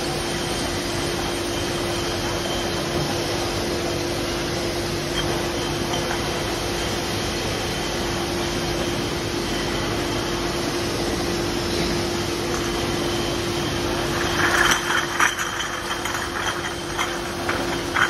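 Bottling-line machinery running: a steady mechanical drone with a constant hum from the motors and conveyors. About three-quarters of the way through, glass beer bottles start clinking against each other on the conveyor, in quick irregular clinks.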